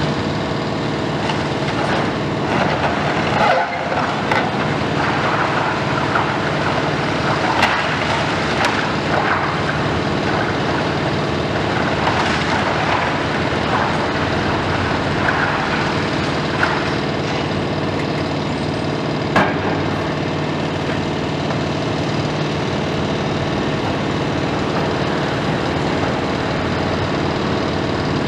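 Heavy diesel machinery running steadily while a Komatsu PC490 long-front demolition excavator breaks into a building. Irregular sharp cracks and crunches of breaking masonry come over the first twenty seconds or so, then thin out, leaving the engine drone.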